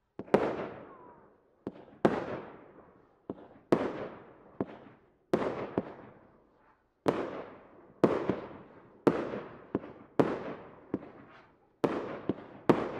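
Fireworks battery (cake) firing shot after shot, a rapid series of sharp bangs about one to two a second, each trailing off in a fading hiss and crackle.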